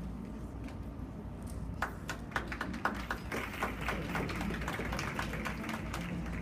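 Scattered clapping from a seated audience. It starts about two seconds in and thickens into brief applause, then thins out near the end.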